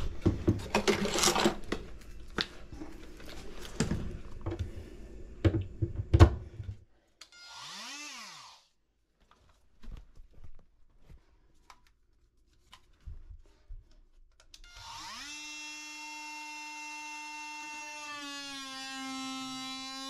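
Knocking and clattering of work for the first several seconds. Then a Makita cordless oscillating multi-tool is briefly revved up and down. About 15 s in it spins up and runs steadily with a humming whine, its pitch dropping a little near the end as it works on the plywood floor.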